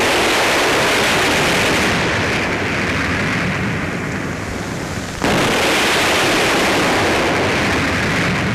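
Two loud blasts of recoilless rifles being test fired, one at the start and one about five seconds in. Each is a sudden bang followed by a long hissing, rumbling fade.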